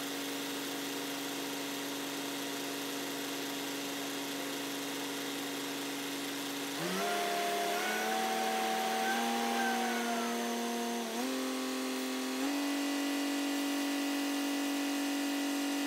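Peterbilt 379 semi-truck's diesel engine running steadily. Its pitch steps up about seven seconds in and again a little after twelve seconds as the revs rise.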